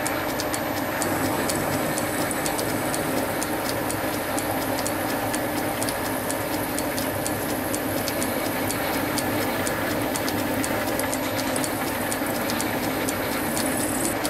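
Metal lathe running steadily while a drill bit in the tailstock chuck is fed into the centre of a spinning cast wheel, drilling the axle hole. A steady machine hum carries many small sharp ticks.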